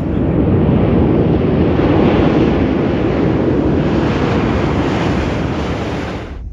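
Loud wind buffeting the microphone, a steady rushing roar that cuts off suddenly near the end.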